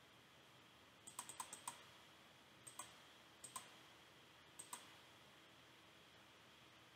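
Faint computer keyboard and mouse clicks: a quick run of about six keystrokes about a second in, then three paired clicks roughly a second apart, as login details are entered and the log-in button is clicked.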